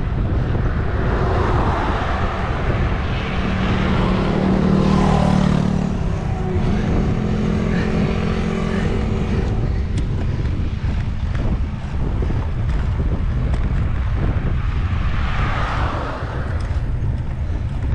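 Wind buffeting the microphone of a road bike's handlebar camera while riding, with tyre noise on asphalt. A motor vehicle's hum rises and fades about four to nine seconds in as it goes by.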